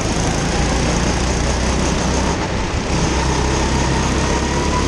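Go-kart engine running under throttle, heard from on board the kart, loud and steady, with a faint whine that climbs slightly toward the end.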